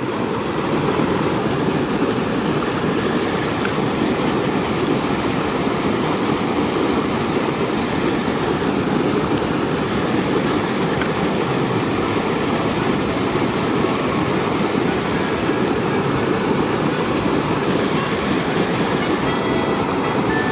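Small creek tumbling over rocks in a short cascade: a steady rushing of water.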